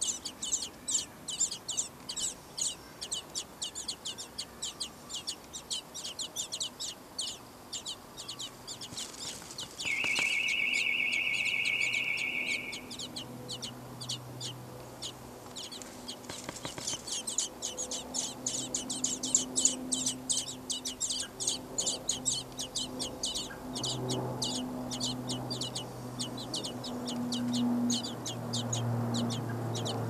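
Songbird nestlings begging, a fast run of short high chirps, several a second, with a louder, steady buzzing trill for a couple of seconds about a third of the way in.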